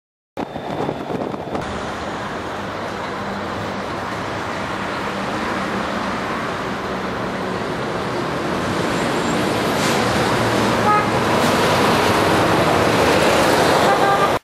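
Town road traffic heard from a moving motorcycle: a steady mix of engine and tyre noise that grows louder, with a brief car horn toot about eleven seconds in.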